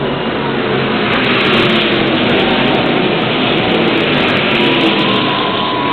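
A pack of Stock Car Brasil V8 race cars runs past at the race start, engines at full throttle. The result is a loud, continuous wash of engine noise, with individual cars' pitch sliding as they go by.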